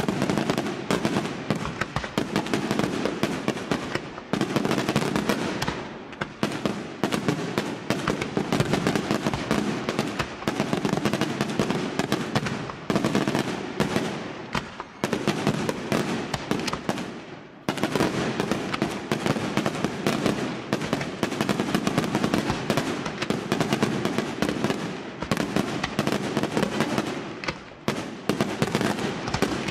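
Aerial fireworks display by Senatore Fireworks: shells bursting in a dense, rapid barrage of bangs, with brief lulls every few seconds.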